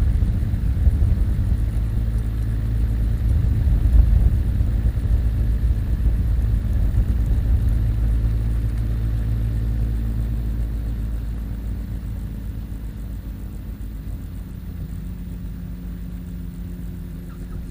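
Rotax 582 two-cylinder two-stroke engine of a Spectrum Beaver ultralight idling through its three-blade propeller, with air rushing over the airframe. The steady low hum fades gradually over the second half as the plane slows on its power-off approach to touchdown.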